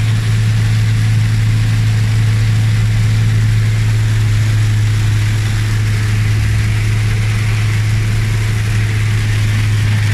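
Very heavy rain hitting the roof and windscreen of a Toyota, heard inside the cab as a steady hiss over the low, even drone of the engine and tyres on the wet road.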